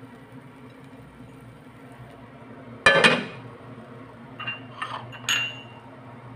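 A frying pan set down on a gas stove's metal burner grate with one loud clank, then three lighter clinks of metal on metal.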